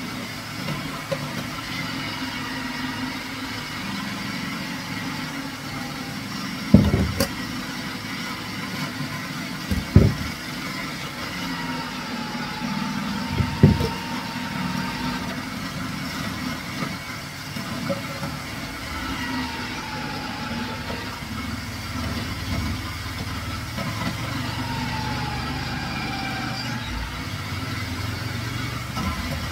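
Electric grating machine running while pumpkin is grated, its motor whine dipping in pitch and recovering several times as pieces are pressed into the blade. Three sharp knocks in the first half.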